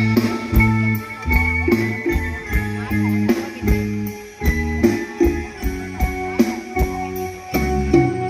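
Live band playing an instrumental passage with a steady drum beat over a moving bass line and sustained keyboard or guitar tones; no singing.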